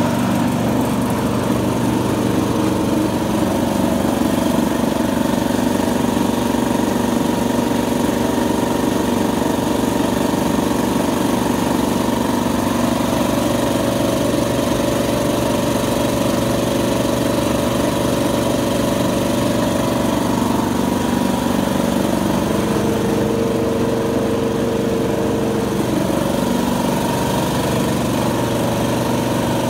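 1988 Champion oil-less air compressor running steadily: a continuous, even mechanical drone with several steady hum tones.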